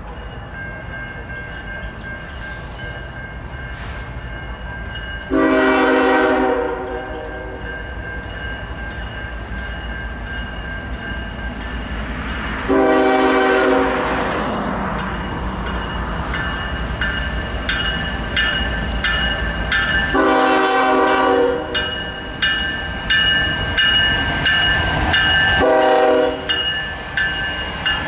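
Nathan K5LA air horn on a GE ES44DC lead locomotive sounding four blasts, three long and a final shorter one, as the train approaches. Between the blasts, the rumble of the locomotives and the clatter of wheels on rail grow louder as the train nears.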